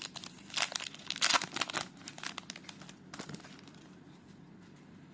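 Trading-card pack wrapper being torn open and crinkled: several sharp bursts of crackling in the first two seconds, one more a little after three seconds, then faint rustling.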